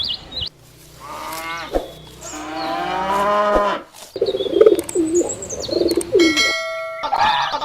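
Cattle mooing, with a rising call about a second in and a long drawn-out moo from about two seconds in. This is followed by a different, lower warbling animal call and, near the end, a brief burst of another animal's calls.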